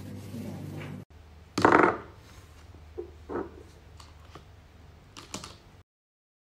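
Handling of a charging cable and plastic charger parts. A steady low hum stops abruptly about a second in. Then comes one loud rustling knock, followed by a few light clicks and taps, before the sound cuts out near the end.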